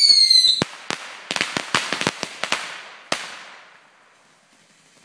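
Consumer firework whistling with a slowly falling pitch, cut off about half a second in by a sharp bang. A quick string of about eight sharp bangs follows over the next two seconds, with one last bang near three seconds in.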